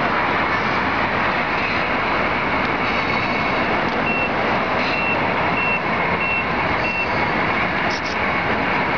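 Reversing beeper from a radio-controlled truck's sound unit: five short, high beeps on one pitch, evenly spaced about two thirds of a second apart, starting about four seconds in, over a steady rushing noise.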